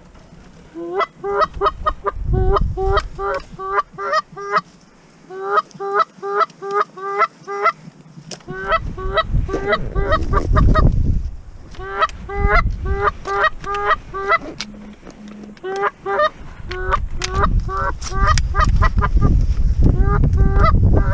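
Canada goose honks and clucks in fast runs of several notes, about four or five a second, each note breaking sharply upward at its end, with short pauses between runs. A low rumble sits under some of the later runs.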